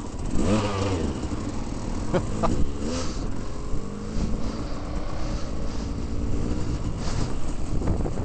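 Dirt bike engine on the move, revving up and down a few times in the first three seconds, then running at a steadier pitch.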